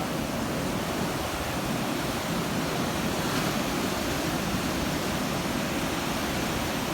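Steady rushing noise of ocean surf and wind, even throughout, with no distinct sounds standing out.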